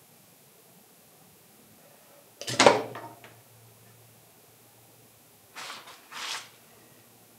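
Workshop handling sounds: one loud knock about two and a half seconds in, then two shorter scraping sounds about half a second apart near the end.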